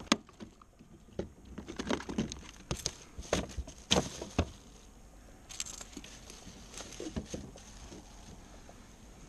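Scattered knocks, taps and rustles of a small flounder being handled on a plastic kayak deck and laid against a wooden measuring stick, busiest and loudest in the first half, then quieter.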